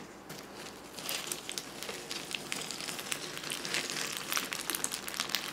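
Milk poured onto crisped rice cereal in a plastic container, the cereal crackling with many fine pops that start about a second in and keep on.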